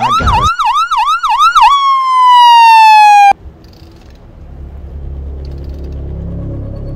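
Siren sound effect: a fast up-and-down yelping wail, then one long tone gliding slowly downward that cuts off suddenly about three seconds in. A quiet low drone follows.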